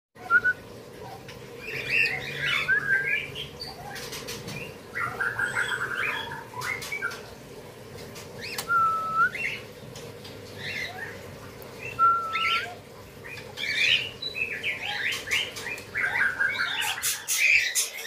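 Caged songbirds calling in repeated bursts of varied chirps, whistles and sharp clicks, including two short, clear whistled notes.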